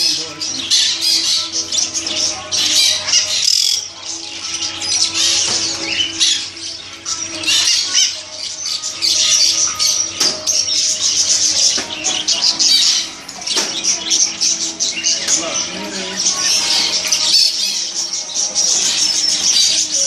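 Many caged pet-shop birds chirping and squawking at once, a dense chatter that never lets up.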